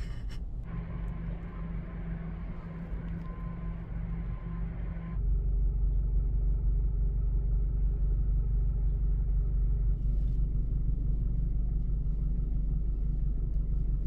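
A steady low rumble with a faint hum over it. About five seconds in it turns louder and deeper and holds there.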